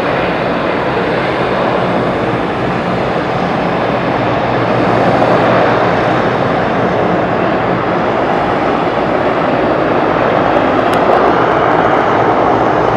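Twin Pratt & Whitney Canada PW123 turboprop engines and propellers of a De Havilland Canada Dash 8-300 airliner running, a loud steady drone that swells slightly about five seconds in.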